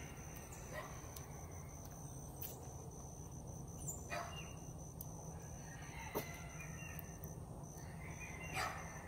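Baby squirrel sucking puppy milk from the sipper tube of a hanging feeding bottle, heard as a few faint, short clicks spread across several seconds. Under it there is a steady low hum and a faint high pulsing tone.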